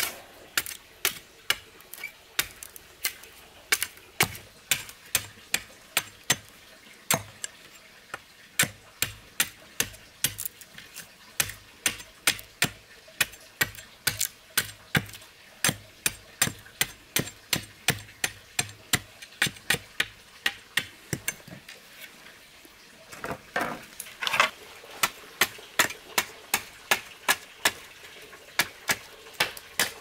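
Machete blade striking bamboo held against a wooden log: sharp, regular knocks about two a second. There is a brief louder crackling spell about three-quarters of the way through.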